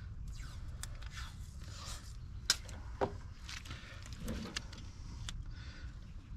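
Handling noise from measuring with a tape measure: scattered light clicks and scrapes, two sharper clicks about two and a half and three seconds in, over a steady low rumble.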